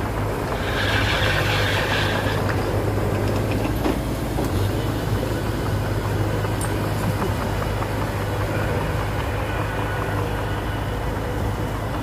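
Heavy diesel earthmoving machinery running steadily, with a brief high metallic squeal from about one to two and a half seconds in.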